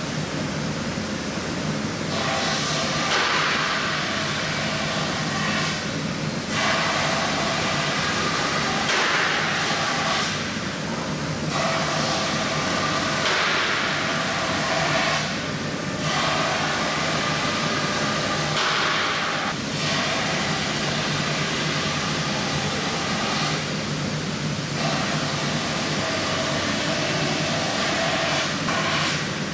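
Three-axis CNC machining center running, its spindle keeping up a steady hum while the cutter mills foam. The higher cutting noise swells and drops away briefly about every four to five seconds as the tool works back and forth.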